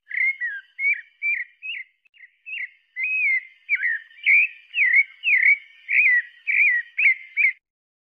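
Sabiá-parda thrush singing: a string of short, clear whistled phrases, about two a second, each sliding down or up in pitch, with a softer stretch about two seconds in; the song stops abruptly shortly before the end.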